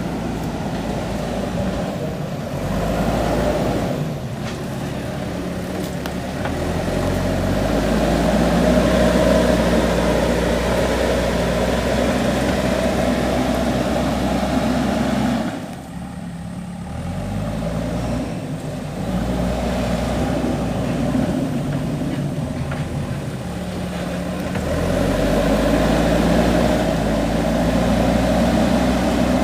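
JCB 3DX backhoe loader's diesel engine running under working load, its speed rising and falling every few seconds, with a brief dip in level about halfway through.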